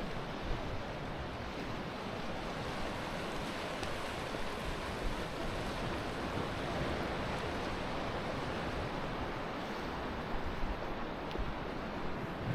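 Steady wash of Atlantic surf, with wind rumbling on the microphone.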